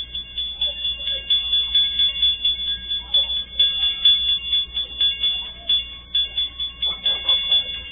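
Level-crossing warning bell ringing rapidly and steadily, about three to four strikes a second, signalling an approaching train.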